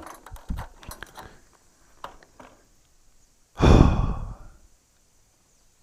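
A man's single heavy sigh, a loud breathy exhale about three and a half seconds in, preceded by a few faint clicks and knocks.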